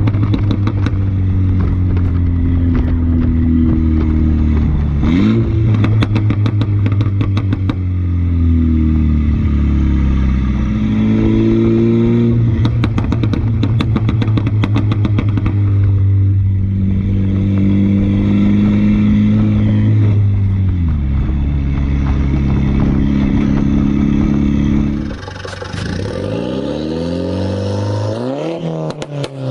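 2015 F56 Mini Cooper S's turbocharged 2.0-litre four-cylinder with a straight-pipe exhaust, accelerating through the gears: the engine note climbs and drops back at each shift, with bursts of exhaust crackles and pops. Near the end it turns quieter with quick revs up and down.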